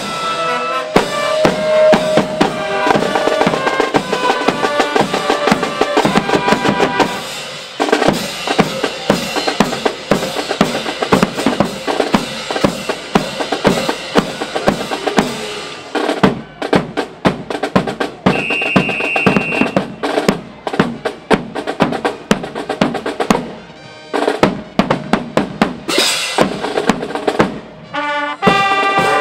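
Marching drum and bugle corps playing. Brass carries a tune over the drums at first. Then the drum line plays alone, with snare drums and bass drums beating a steady cadence. The horns come back in near the end.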